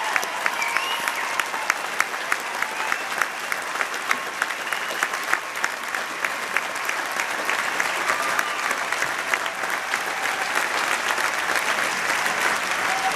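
Large audience applauding in a steady ovation, with sharp nearby claps standing out at about three a second.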